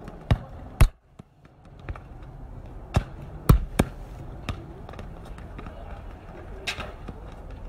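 A football being kicked repeatedly: sharp thuds of foot on ball, two near the start and three in quick succession about three seconds in.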